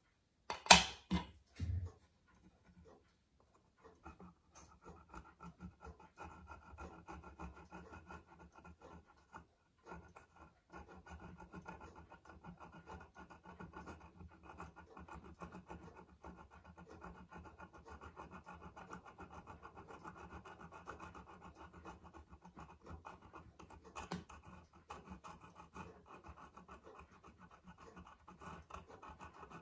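A few sharp knocks of small hand tools set down on a wooden workbench about a second in, then a faint, steady scratching and rubbing of fingers working on a silver pocket-watch case.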